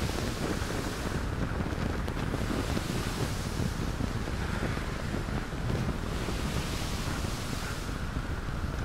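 Wind buffeting the microphone and water rushing past the hull of a rigid inflatable boat running at speed over choppy sea, swelling and easing in gusts.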